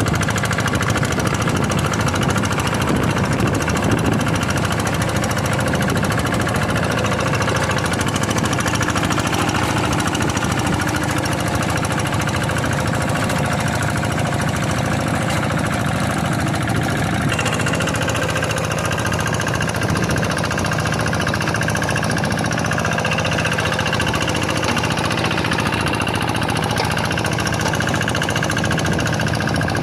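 Kubota single-cylinder diesel engine of a Quick G1000 hand tractor running steadily under load with a rapid knocking beat. The sound changes abruptly a little past halfway.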